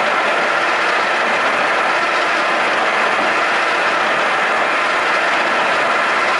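FYD-32 milling machine running with a steady, even mechanical noise.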